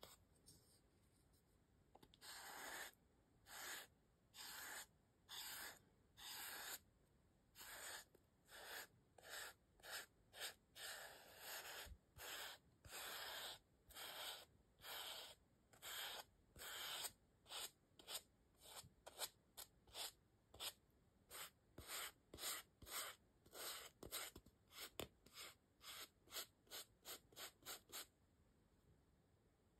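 A paintbrush's bristles stroke gold paint onto a styrofoam star. The sound is a long run of short, quiet, scratchy brushing strokes, about one to two a second, coming quicker toward the end.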